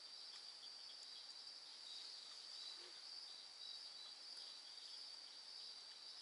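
Faint, steady chorus of night insects, an unbroken high-pitched trill.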